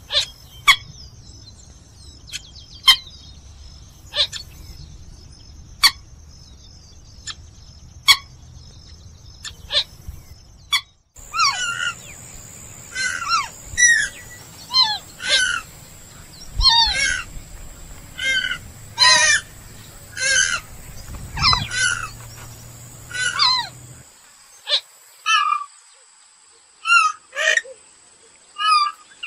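Purple gallinule calls. For the first several seconds they come as single sharp notes about every second and a half. After an abrupt break about eleven seconds in, a dense run of repeated, downward-sliding call notes follows, several a second at times. A steady high-pitched tone runs behind the calls throughout.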